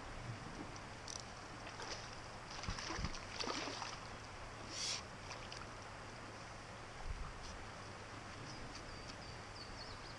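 Small creek flowing steadily, with brief splashing and rustling in the first half as a rock bass takes a fly and is played on the line.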